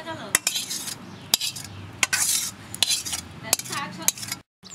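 Metal kitchen utensils clinking and scraping in irregular sharp strokes, about six of them.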